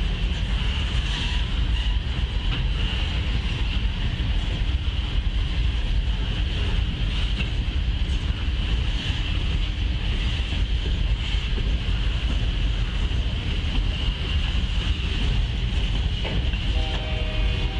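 Freight train of refrigerated boxcars rolling past, a steady rumble of wheels on rail. A train horn starts sounding near the end.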